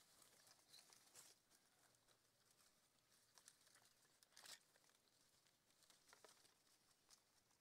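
Near silence with faint rustling and a few soft crackles from a paper delta trap and leafy branches being handled; the clearest crackle comes about four and a half seconds in.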